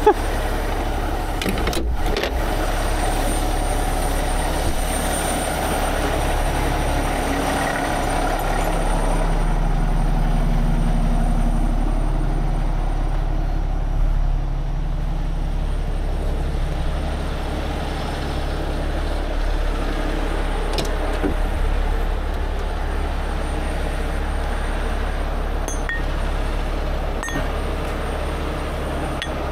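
Heavy tow truck's diesel engine running steadily, a little louder for a few seconds near the middle, with a few light knocks and clicks of rigging gear being handled.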